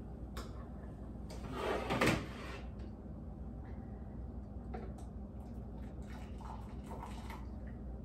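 Kitchen handling sounds: a scraping clatter that builds to a knock about two seconds in, as the coffee brewer is set down and the kettle is lifted off the stove, then a few light clicks and clinks.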